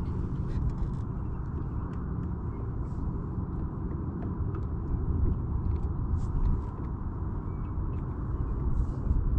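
Steady low rumble of wind buffeting the microphone, with a few faint ticks.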